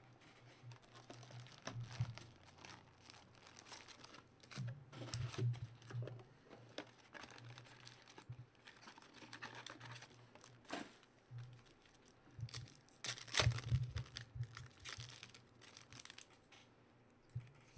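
Foil trading-card pack wrappers crinkling and tearing as packs are pulled from a Panini Contenders box and opened, with irregular rustles and a louder run of crackles about two-thirds of the way in.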